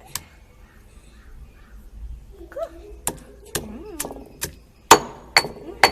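Pestle pounding in a mortar to crush ingredients for a natural colour. There is one knock near the start, then a steady run of sharp knocks about two a second from about three seconds in.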